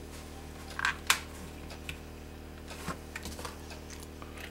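Small clicks and rustles of thin brass picture-hanging wire being twisted by hand around itself at a screw eye on a canvas frame, with a sharp click about a second in and a few lighter ticks later.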